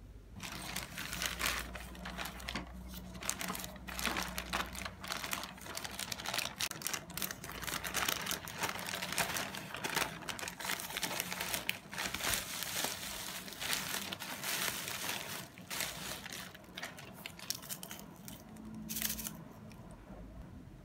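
Plastic packaging and bubble wrap crinkling and rustling in irregular bursts as it is handled and unwrapped by hand.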